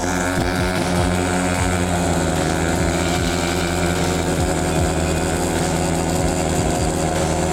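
Stunt motorcycle engines held at high, steady revs during a burnout, the rear tyre spinning against the tarmac.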